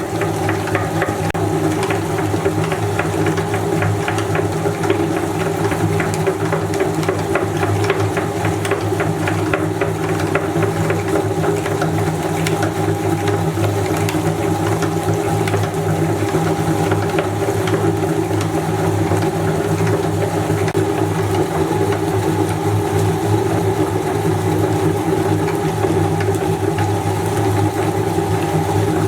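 Electric meat grinder running steadily, its motor giving a constant hum, with a dense crackling of material being crushed in it.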